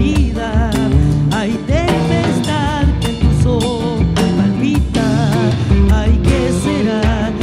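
Live band playing a chacarera: acoustic guitar over heavy bass notes and regular drum strikes, with a wavering melody line on top.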